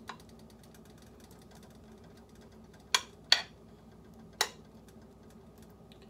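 A metal spoon clinks sharply against the cookware three times, two close together about three seconds in and one more about a second later, each with a short ring. Under it is a faint steady hum.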